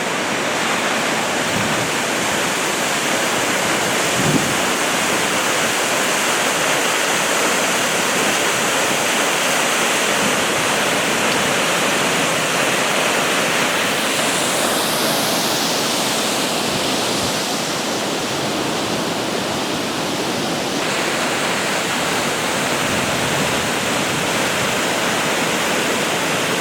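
High Shoals Falls rushing steadily, a dense even roar of falling water. A single light knock sounds about four seconds in.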